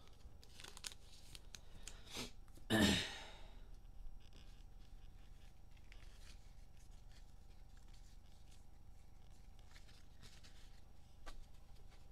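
A plastic trading-card pack wrapper torn open in one short, loud rip about three seconds in, among a few light clicks of cards and packs being handled.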